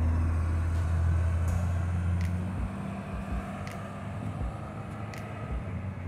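Heavy diesel engines of a farm tractor and a wheel loader running, a deep steady drone that is loudest for the first couple of seconds and then eases off. A few sharp clicks sound over it.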